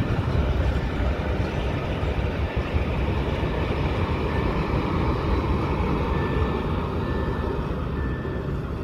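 Freight train of open-top wagons rolling past close by: a steady rumble of steel wheels on the rails, with a faint thin high tone coming and going over it.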